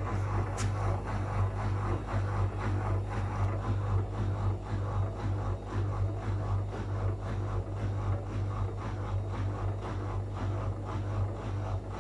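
Whirlpool FL 5065 washing machine running with its drum turning: a steady motor hum under a pulsing rumble of the drum and load.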